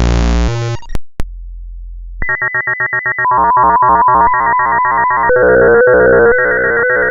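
Synthesized sound generated by the REGEX GDI malware. A dense, buzzy electronic pattern cuts off just before a second in with a click, and a low hum follows. About two seconds in, a fast pulsing electronic loop with a repeating melody starts and keeps going.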